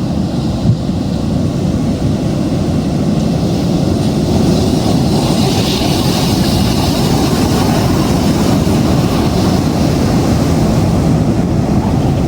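Rough sea and strong wind: a loud, steady low rumble, with a hissing wash that swells from about five to seven seconds in.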